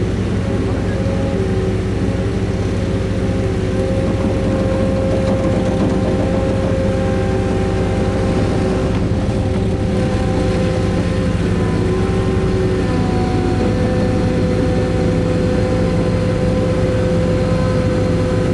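A skid steer's diesel engine running steadily with a constant pitch while the machine pushes the dead skid steer up onto a trailer.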